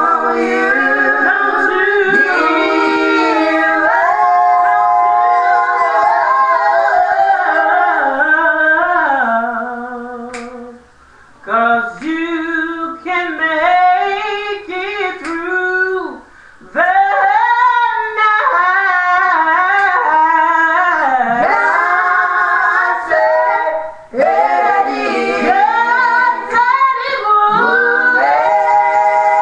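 A woman singing a slow gospel song solo, without accompaniment, drawing out long held notes with bending runs, with a few short breaths between phrases.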